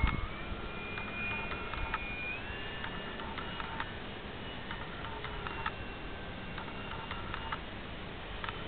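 Distant whine of an FMS Sbach 342 electric RC aerobatic plane's motor and propeller in flight, its pitch stepping up twice, near the start and a couple of seconds in, as the throttle changes. Scattered faint ticks sound over it.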